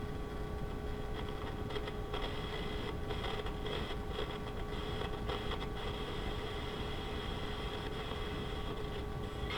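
Steady static hiss with a steady whistle from a small clock radio's speaker, tuned off-station, with faint crackles between about two and six seconds in.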